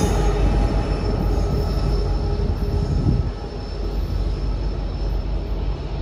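A consist of EMD diesel locomotives on a coal train rumbles past at speed, with engine and wheel-on-rail noise. About three seconds in, the sound drops as the units move away, leaving a lower, steady rumble.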